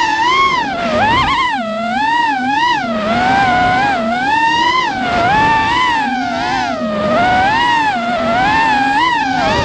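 FPV racing quadcopter's brushless motors and propellers whining, the pitch rising and falling every half second or so as the throttle changes through the turns.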